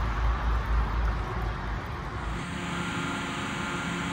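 Outdoor road-traffic rumble and hiss, heavy and fluctuating in the low end. About two and a half seconds in it cuts abruptly to a steady hum with several held tones.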